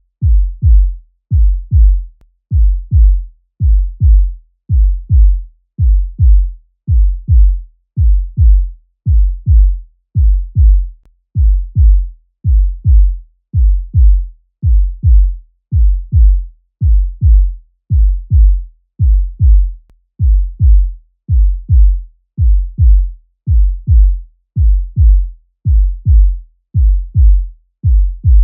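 Human heartbeat sound effect: a steady, even rhythm of low, muffled lub-dub thumps in pairs, a little faster than one beat a second.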